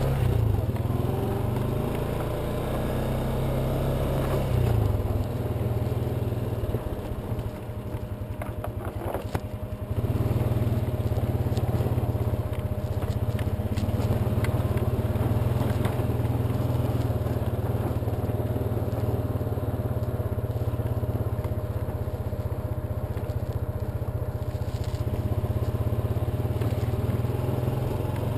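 Honda ATV engine running under way on a rough trail, easing off to a slow, lumpy putter about six seconds in and pulling steadily again about ten seconds in. A few short knocks sound while it is throttled back.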